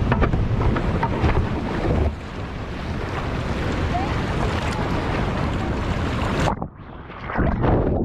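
Rushing whitewater and wind buffeting a kayak-mounted camera as the kayak runs a rapid. About six and a half seconds in, the sound goes suddenly muffled as the camera plunges under the water, then a short loud splash breaks through before it muffles again.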